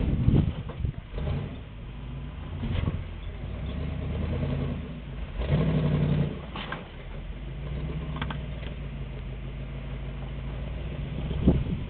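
Rock crawler buggy's engine running at low revs, blipped louder near the start and again around six seconds in as it climbs over boulders. A few sharp knocks come through, one loud one near the end.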